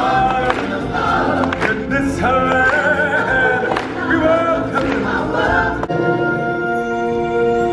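Music with a choir singing over percussion; about six seconds in, the drums stop and the voices hold one long chord.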